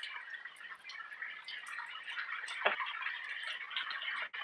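Rain still falling after easing off, a steady patter of drops ticking and dripping, with one louder tap a little past the middle.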